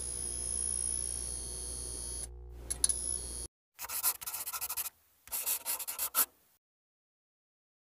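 Editing sound effects for an animated intro. A steady electronic hiss with a low hum and a high whine, with a few sharp clicks, cuts off about three and a half seconds in. Then come two runs of quick rasping ticks, each about a second long.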